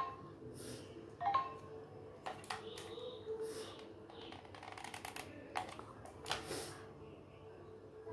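Scattered sharp clicks and light handling taps from working with a hot glue gun and foamiran craft petals. There is a short chime-like note about a second in and a few soft hissy rustles.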